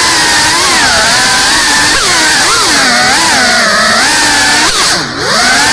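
Brushless motors and ducted propellers of a GEPRC Cinelog 35 cinewhoop FPV drone, whining in flight, their pitch rising and falling with the throttle. About five seconds in, the throttle is cut briefly and the whine drops sharply before climbing back.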